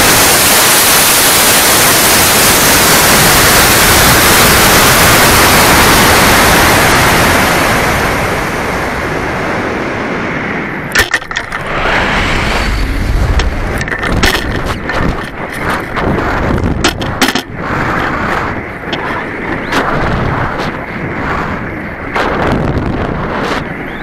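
Model rocket motor burning, heard from a camera riding on the rocket: a loud, steady rushing hiss that fades after about eight seconds as the burn ends. Air then rushes over the airframe and microphone, with irregular sharp knocks and crackles from about eleven seconds on.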